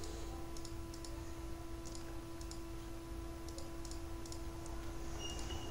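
Computer mouse buttons clicking repeatedly, mostly in quick press-and-release pairs, over a faint steady hum.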